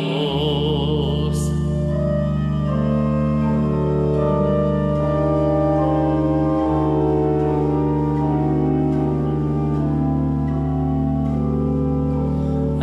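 Church organ playing alone between sung verses: slow sustained chords over a held low bass note. A man's last sung note, with vibrato, dies away about a second in.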